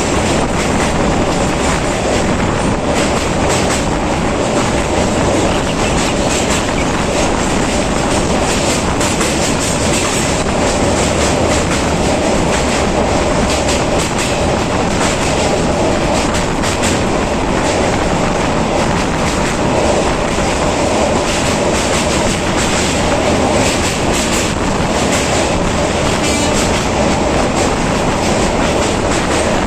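Train running steadily on the rails: a continuous rolling rumble with frequent clicks of the wheels over rail joints and a steady mid-pitched tone riding over it.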